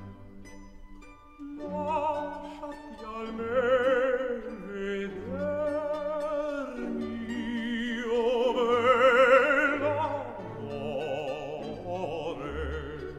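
Background music: a classical operatic voice sung with strong vibrato over an orchestral accompaniment.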